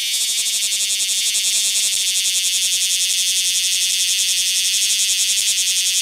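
Bear cicada (Cryptotympana facialis) singing at close range: a loud, continuous high buzz with a fast, even flutter.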